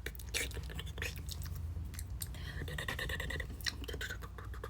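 Close-miked light clicks, taps and rubs of makeup being handled: a pressed powder compact being opened and its powder picked up.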